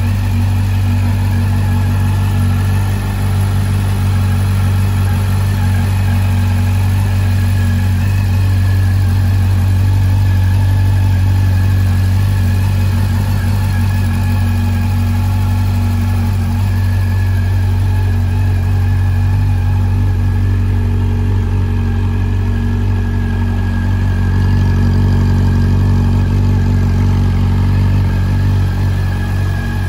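Honda CB400 Super Four VTEC Revo's inline-four engine idling steadily.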